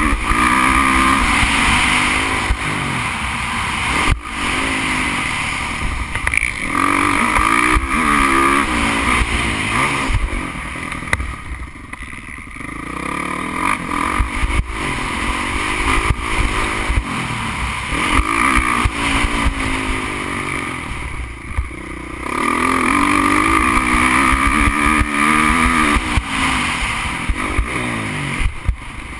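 Motocross bike engine at racing speed, heard from a camera mounted on the bike. It revs hard and its pitch climbs again and again as it shifts up through the gears. The throttle closes briefly twice, about a third and two-thirds of the way through, before it pulls again.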